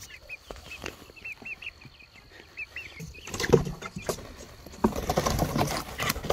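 Chickens peeping softly in a cardboard box, then wings flapping and feet scrabbling on the cardboard as they flap up onto the rim and fly out: a short loud flurry about three seconds in, and a longer one through the last second and a half.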